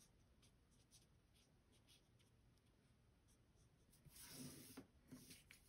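Faint taps of a Stampin' Blends alcohol marker tip dabbing colour onto cardstock, then a louder, brief rub of paper and hands on the work surface about four seconds in.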